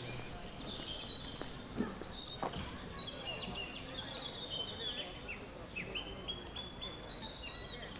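Several songbirds chirping and singing in the trees, with quick repeated chirps and short sweeping notes throughout, over a low murmur of people's voices. Two short knocks sound about two seconds in.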